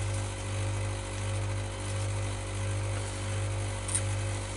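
Steady low hum with a buzzing edge, unchanging throughout; a faint click about four seconds in.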